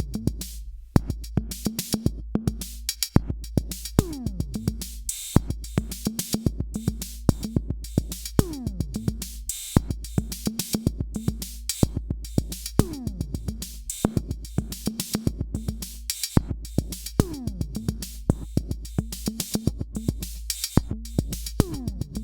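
Drum-machine beat looping, with a steady deep bass note under the hits and a falling synth sweep about every four seconds.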